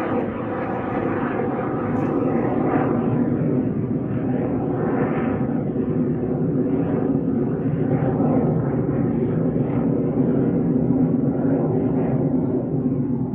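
Fixed-wing aircraft engines droning steadily and loudly as a plane passes, the sound having just built up.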